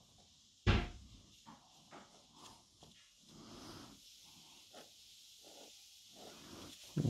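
Two thumps against the desk, a loud one about a second in and another near the end, with faint scratching of a pen nib on paper between them.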